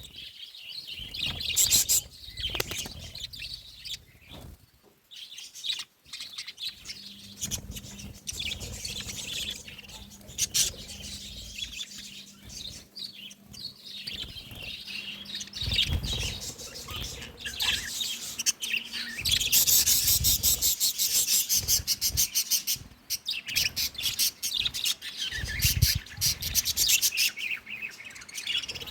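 A flock of budgies chirping and chattering continuously, with a spell of especially rapid, loud chatter in the second half.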